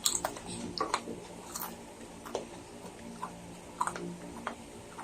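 Eating sounds: scattered, irregular sharp clicks and smacks of mouths chewing, over a faint steady low hum.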